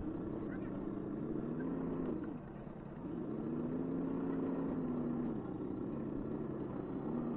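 A 1:10-scale RC rock crawler's electric motor and gear drivetrain whining in throttle bursts, the pitch rising and falling with each. Two bursts of about two seconds each, with a short break between, then a third starting near the end.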